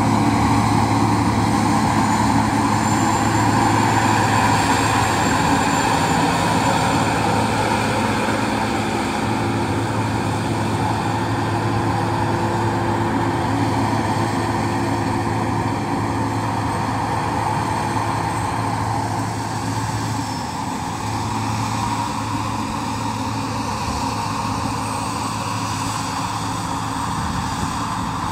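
Combine harvester running steadily with a continuous engine drone, dipping slightly in level about twenty seconds in.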